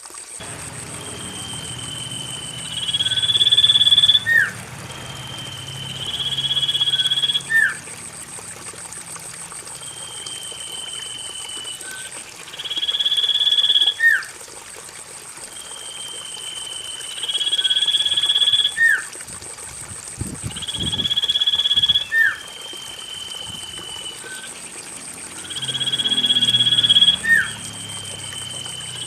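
Common iora singing the same phrase over and over, about every three to four seconds: a long drawn-out whistle that swells in loudness over a lower note, ending in a quick upward flick. A thin steady high whine runs underneath, with a few low thumps about two-thirds of the way through.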